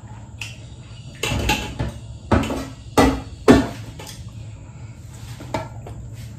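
A metal spoon scooping cooked pasta and scraping and knocking against the pot. A scraping run comes first, then three sharp knocks about half a second apart, and a lighter knock near the end.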